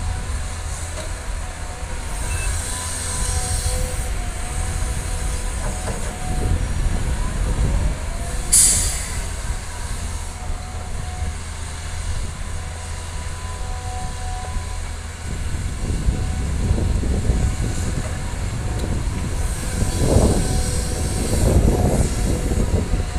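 Diesel engines of CAT hydraulic excavators running steadily under load, a low rumble with a faint steady whine, and a short sharp hiss about a third of the way in. Near the end, heavier rumbling surges come as a bucketload of dirt is dumped into the steel bed of a dump truck.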